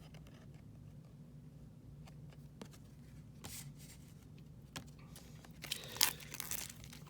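Cardboard trading-card packaging being handled: scattered light clicks and a short rustle, then louder rustling about six seconds in, over a faint steady hum.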